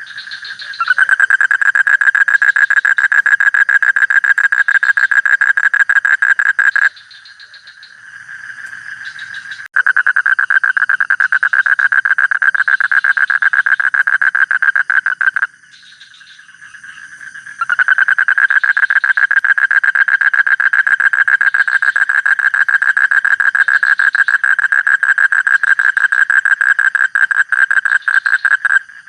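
Frog calling in long, loud trains of rapid pulses, each train about six seconds long or more, three times over, with short quieter pauses between.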